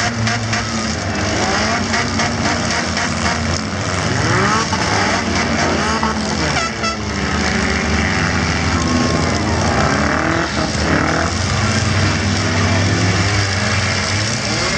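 Several stock compact cars' four-cylinder engines revving hard at once, their pitches rising and falling over one another as the cars ram each other. A sharp collision comes about seven seconds in.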